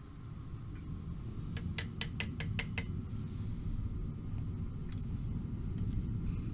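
Propane ring burner's flame rumbling steadily under a steel pot of molten lead. About a second and a half in come six quick metallic clinks, about five a second, from a steel skimmer knocking against the pot while dross is skimmed off.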